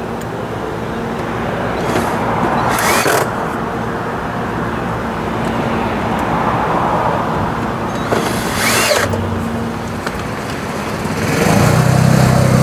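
A cordless drill driving Phillips screws into a scooter's plastic front fairing: two short runs, about two seconds in and about eight seconds in, each spinning up in pitch. A steady low hum runs underneath, and a louder low hum comes in near the end.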